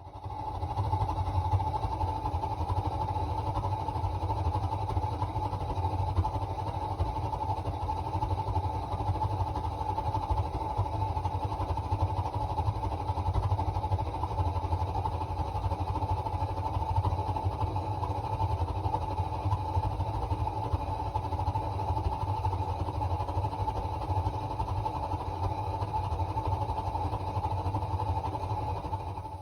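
Bradford gas water heater's burner running with a steady, fluttering rumble, with no distinct bangs. This is the weird sound of a faulty burner and pilot assembly whose burner screen has holes in it.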